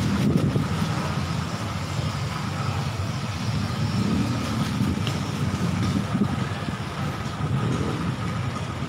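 Steady low outdoor rumble with a faint steady hum above it, running on without a break.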